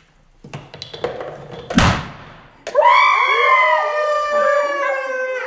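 A balloon bursts with one sharp bang, pricked by a needle at the end of a Rube Goldberg machine, followed about a second later by high-pitched screaming held for nearly three seconds.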